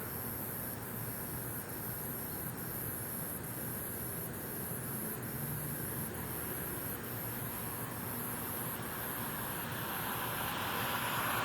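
Night outdoor ambience: a chorus of insects with a high, evenly pulsing trill over a steady hum of distant traffic, which grows louder near the end as a vehicle approaches.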